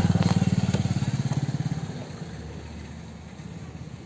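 Small motor vehicle engine running close by with a rapid low pulsing, loud at first and dying away about two seconds in.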